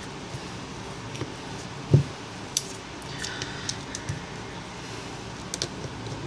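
Handling noise of an iPhone 4 being opened: a dull thump about two seconds in, then scattered small clicks and taps of the phone's glass and metal parts on the work mat.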